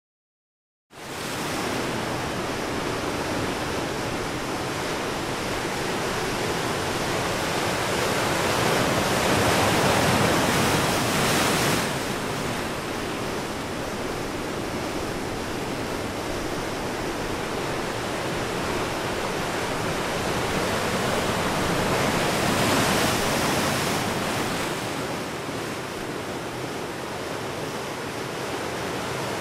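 Ocean surf washing against the shore, a steady rush that swells twice.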